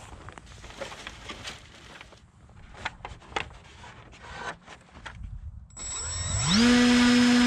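Faint handling clicks and rubs. Then, about six seconds in, the glider's 2212 1200kv brushless motor, turning an 8x6 propeller, spins up quickly to a loud, steady whine at high throttle.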